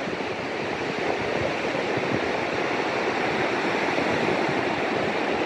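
Steady rush of ocean surf on a sandy beach.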